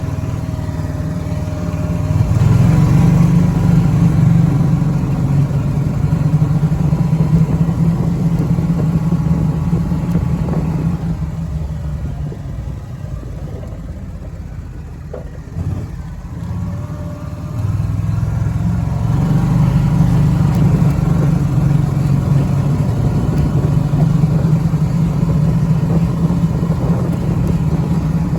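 Snapper Trail Cruiser's engine running under load on a ride, pulling harder about two seconds in. It eases off about halfway, with a single knock during the lull, then picks up again and pulls steadily to the end.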